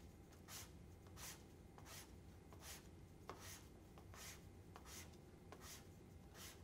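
Household sandpaper wrapped around a paper blending stump, rasping faintly in a steady rhythm of about one stroke every 0.7 seconds as the stump is pulled back and turned, sanding its faceted point smooth.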